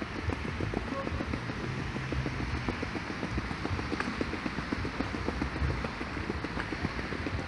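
Wind buffeting a handheld microphone outdoors: a steady low rumble broken by rapid crackles.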